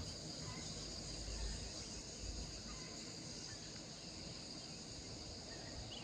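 Steady high-pitched chorus of crickets or similar insects, over a faint low background hiss.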